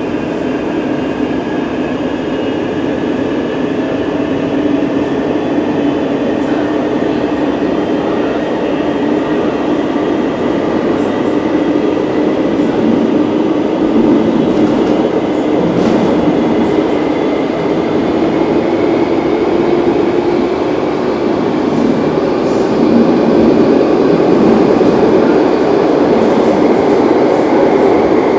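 Renfe series 446 electric commuter train running, its traction motors giving a steady whine over the rumble of the running gear, the pitch slowly rising and the sound growing louder as it picks up speed.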